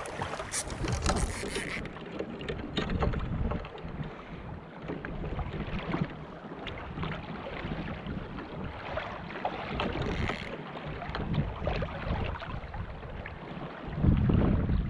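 Wind buffeting the microphone over water moving against a kayak, with scattered small knocks and clicks and a louder gust near the end.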